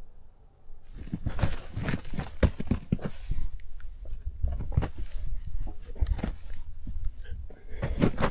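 Footsteps on loose, stony dirt, about two steps a second, starting about a second in.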